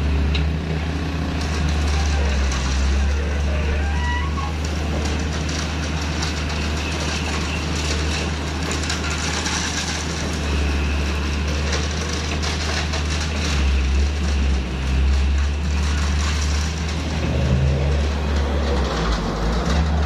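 Diesel engines of heavy construction machinery running: a steady deep drone with mechanical noise over it.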